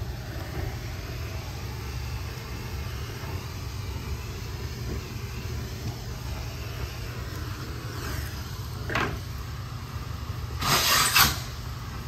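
Steady low drone and hiss of a carpet-cleaning vacuum pulling air through a blue hose, with a short rush of air about nine seconds in and a louder burst of sucking air near the end as the hose is worked free of the stair tool.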